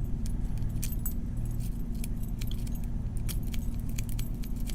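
Lock pick raking the pin stack of a cheap Tru Bolt padlock: light, irregular metallic clicks and scrapes under tension. A steady low hum runs underneath.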